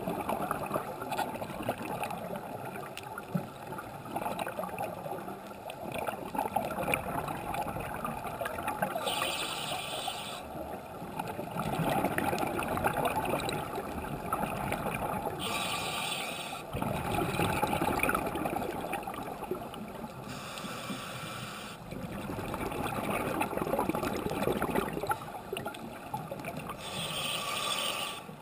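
Scuba regulator breathing heard underwater: short hissing bursts come about every five to six seconds, alternating with longer crackling rushes of exhaled bubbles.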